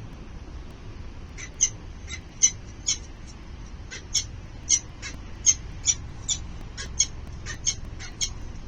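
Falcon chicks in the nest giving a run of short, harsh, high-pitched begging calls, about two a second, starting about a second and a half in and stopping near the end, over a low steady background hum.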